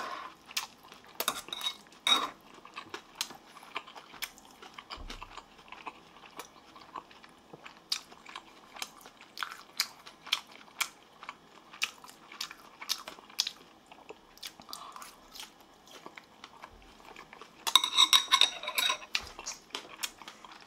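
Close-up chewing and crunching of starch-battered fried pork in kkanpung sauce, a run of crisp crunches and clicks, with metal chopsticks clicking against the bowl. A louder, denser stretch of crunching comes about three seconds before the end.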